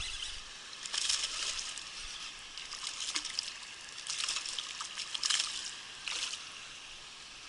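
A small hooked bass splashing and thrashing at the water's surface in several short bursts as it is reeled to the bank.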